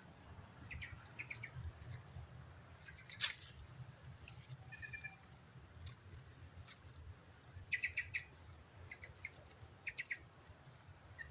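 Short, high chirps from a small animal, coming in quick clusters of two to four, with one louder, sharper squeak about three seconds in.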